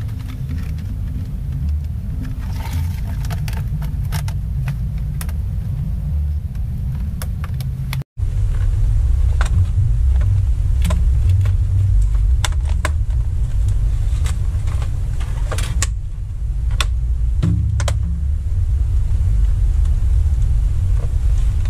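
A steady low rumble throughout, with scattered light clicks and taps of a plastic laptop casing being handled, closed and turned over.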